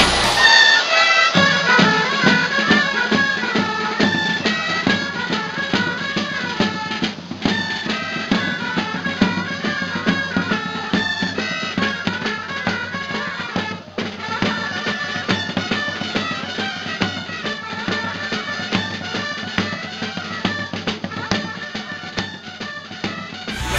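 Traditional folk music: a high, busy melody over steady drumming.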